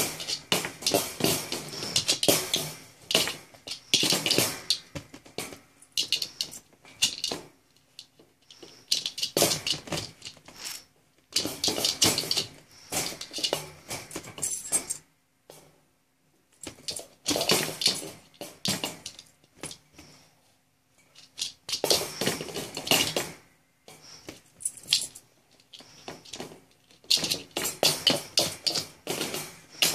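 Metal wire dog crate rattling and clinking in bursts of a second or two, separated by quiet gaps, as a small dog rolls and scrabbles inside it playing with a ball.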